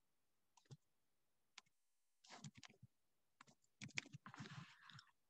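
Faint typing on a computer keyboard: a few single key clicks, then two quick runs of keystrokes in the second half.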